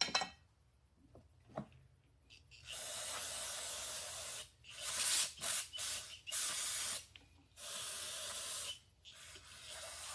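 Aerosol spray can hissing in repeated bursts, some about a second and a half long and some short, as a small ATV carburetor is being cleaned of varnish. A sharp click comes right at the start.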